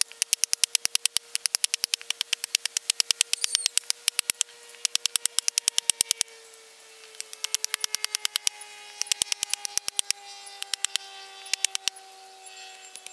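Rapid, regular chopping clicks of a machete blade striking a bamboo slat held against a wooden log, about six strokes a second with a few short pauses. A faint steady hum slowly falls in pitch underneath.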